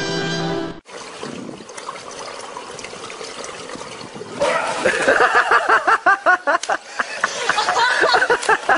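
Water splashing and lapping in a swimming pool. About halfway through, a louder run of quick, repeated vocal sounds starts, several a second.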